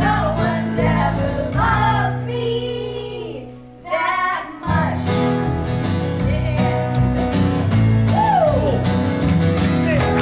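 Live acoustic band, upright bass and acoustic guitar, playing a song while children and adults sing along into microphones. The music dips briefly about four seconds in, then carries on.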